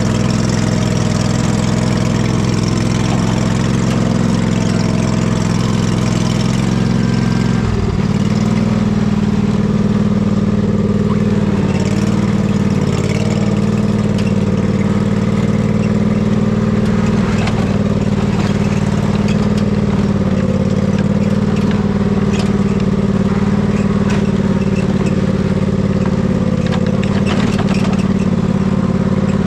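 Husqvarna riding mower's engine running steadily. Its note changes abruptly about a quarter of the way in, then holds steady again.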